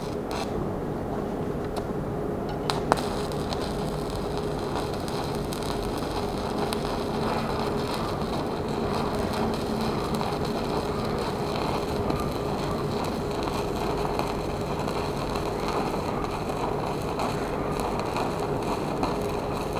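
Stick (shielded metal arc) welding at 60 amps with a 2.6 mm electrode on 3 mm steel plate: the arc crackles steadily through a long continuous bead, with one sharp pop about three seconds in.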